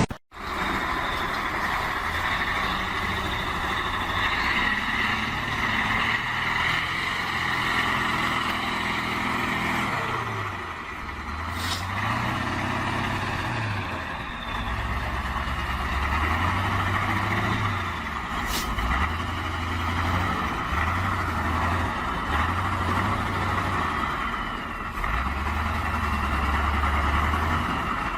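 A motor vehicle's engine running. From about ten seconds in, its low note rises and drops back again and again.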